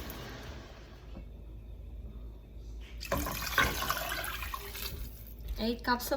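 Water being poured into a hot soup pot of browned chicken thighs, onion, garlic and ginger. The sizzle dies away in the first second, and a splashing, filling sound follows.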